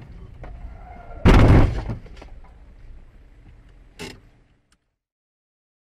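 Car collision picked up by a dashcam over low road rumble: a loud bang about a second in that dies away over about half a second, then a second, sharper knock about four seconds in before the sound cuts off.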